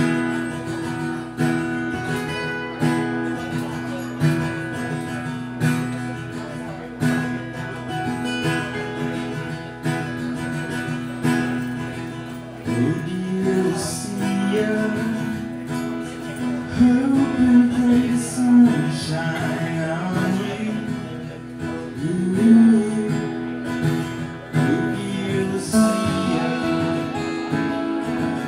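Live acoustic band playing a song: two acoustic guitars strumming over a drum kit, instrumental at first, then a man singing lead from about 13 seconds in.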